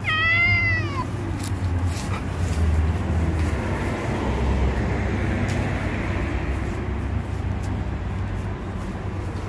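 A high whining cry that falls in pitch in the first second, from dogs at rough play. It gives way to a steady low rumble with a few faint knocks.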